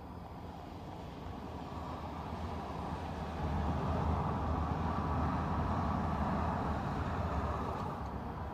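A car going past, its engine and tyre noise swelling over a few seconds, holding, then easing off slightly near the end.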